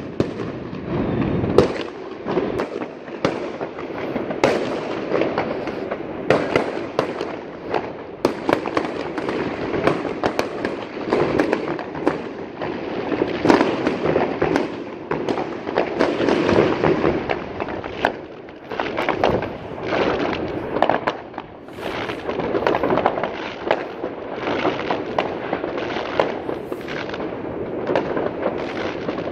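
Fireworks and firecrackers going off in a dense, unbroken run of overlapping bangs and crackles.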